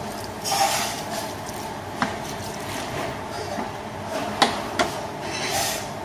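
Water poured into a steel pot of sautéed leeks, carrots and tomato paste, with three sharp knocks of a metal spoon against the pot about two seconds and four and a half seconds in.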